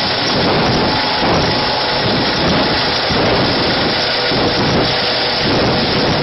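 Eurocopter EC135 helicopter running loud: a dense, steady rush of rotor and twin-turbine noise with a faint whine in it.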